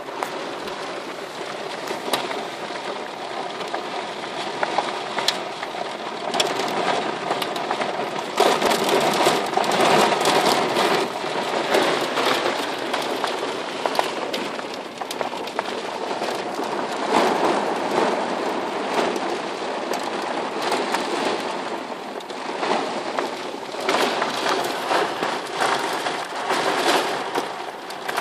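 Heavy rain beating on a car's roof and windscreen, heard from inside the car: a dense hiss of countless drop impacts, heaviest from about eight to thirteen seconds in.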